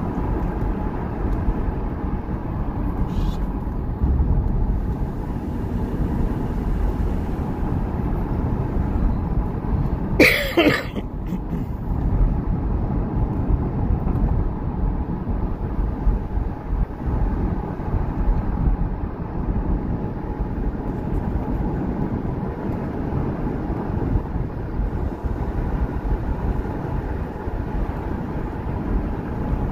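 Steady low rumble of a car driving on a dirt road. A brief pitched squeal sounds once, about ten seconds in.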